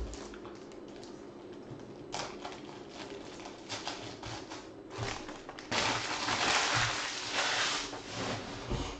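Crinkling and rustling of a foil trading-card pack wrapper being handled and torn open, with scattered clicks, loudest from about six to eight seconds in.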